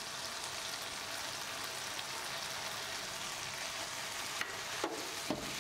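Chicken and freshly added vegetable strips frying in oil in a nonstick pan: a steady, soft sizzle, with a silicone spatula stirring and a couple of short clicks against the pan near the end.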